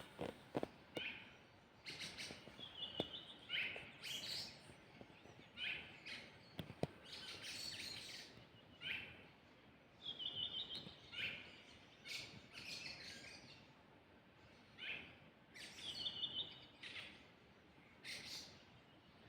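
A songbird singing at night: a string of varied short phrases every second or two, some of them rapid trills of repeated notes, over a faint background hiss.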